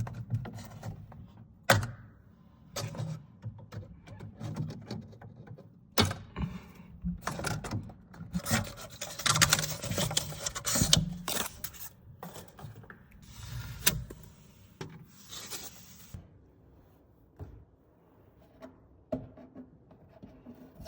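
Hands removing zip ties and packing from inside a Bambu Lab P1S 3D printer: irregular rubbing and rustling with scattered sharp clicks and knocks. A longer stretch of rustling comes in the middle.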